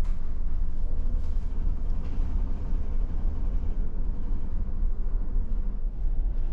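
Steady low rumble of a car ferry's engines under way, heard from inside the ship, with a few faint taps.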